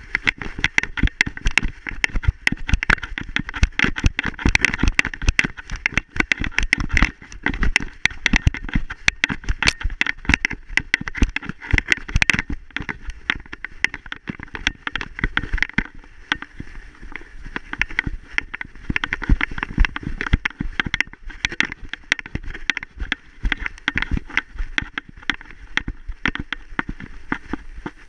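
A dog galloping through snow, heard from a GoPro HD Hero 3+ strapped to its back: a rapid, uneven stream of thumps and crunches from the paw-falls and the camera jolting in its harness.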